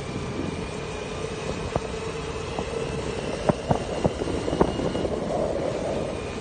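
A moving vehicle's engine and road noise: a steady drone with a faint hum. About halfway through come a few sharp knocks or rattles.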